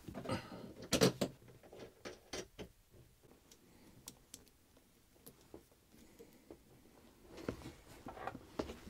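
Light clicks and knocks of a heavy battery cable and its metal crimped ring lugs being handled and moved, with soft rustling; a cluster of clicks in the first few seconds, fewer in the middle, and more near the end.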